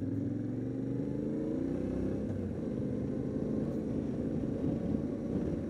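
Yamaha Ténéré 700's parallel-twin engine pulling under way, its note rising over the first two seconds, then running more unevenly at a lower, rougher note.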